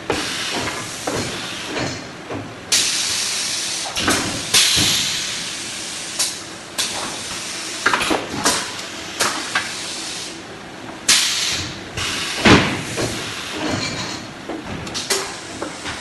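Paper-core gluing machine at work: repeated sudden hissing bursts that each fade over about a second, mixed with knocks and clatter of cardboard tubes being handled, the loudest knock about twelve seconds in.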